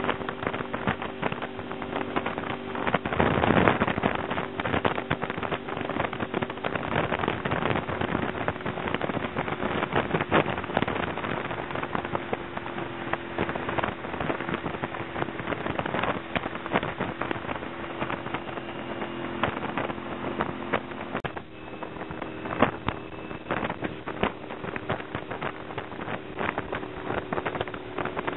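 Motorcycle engine running at steady road speed, with wind buffeting the microphone. A louder gust of wind comes about three seconds in, and the engine note changes once about two-thirds of the way through.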